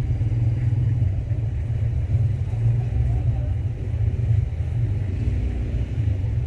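Steady low rumble, with faint voices in the background.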